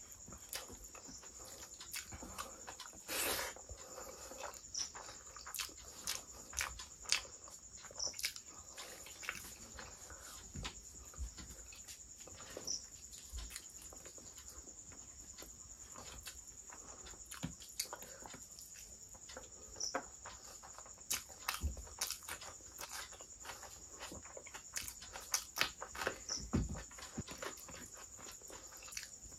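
Close-miked eating sounds: wet chewing and lip smacks of a mouthful of rice and curry, with many short sharp clicks, and fingers squishing rice and gravy on the plate.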